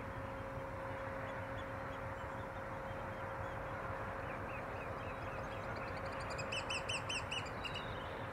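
Birds calling over a steady background hiss: faint scattered calls from about halfway through, then a quick run of about six high, piping notes near the end.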